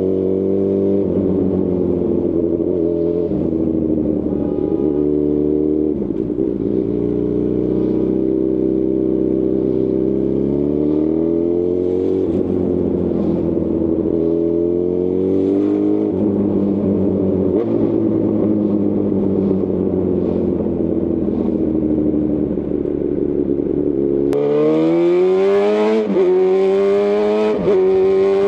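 Honda CB1000R inline-four through a Lextek CP1 full aftermarket exhaust, riding with the revs climbing and dropping repeatedly as the rider works the throttle and gears. About 24 seconds in, a rushing hiss joins the engine, and the revs rise and fall more sharply near the end.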